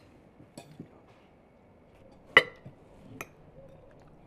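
Spoons and forks clinking against plates and bowls: a few light taps and one sharp, ringing clink about two and a half seconds in, with another lighter clink shortly after.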